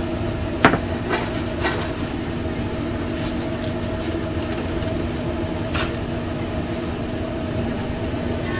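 Steady hum of food-trailer kitchen equipment, with a sharp metal clank about a second in and a few lighter clinks as fries are tossed in a stainless steel mixing bowl.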